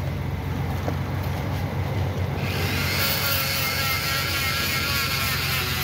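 Small corded electric rotary tool running with a steady low hum, then from about two and a half seconds in sanding against an aluminium alloy wheel rim: a loud hiss with a wavering whine as the motor takes the load.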